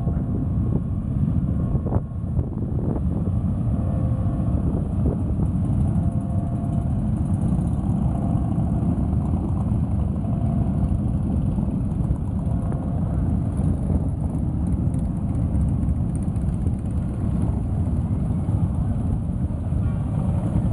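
A stream of motorcycles riding past at low speed, their engines running in a steady, continuous rumble with no break.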